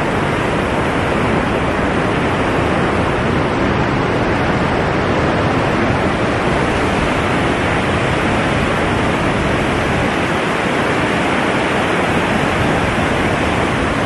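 Waterfall: a loud, steady, unbroken rush of falling water.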